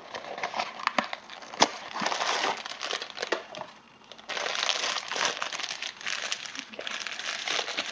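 Crinkly foil bag and cardboard blind box of a Funko mystery mini figure rustling and crackling as they are handled and opened by hand, with a short lull about four seconds in.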